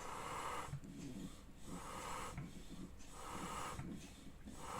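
Faint, rhythmic puffs of hissing air, about one every 1.2 seconds, from the pressure leak test of a Taiga 500 snowmobile's two-stroke engine. The air is escaping past a torn exhaust-manifold gasket, the leak he is hunting.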